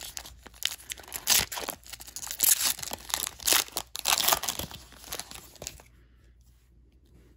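Foil wrapper of a trading-card pack being torn open and crinkled by hand: a dense run of crackles with several louder rips. It stops about six seconds in, once the cards are out.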